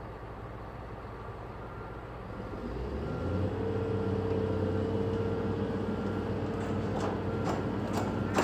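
Excavator's diesel engine running steadily, then rising in level about three seconds in with a steady whine as the machine starts working. A few sharp knocks come near the end.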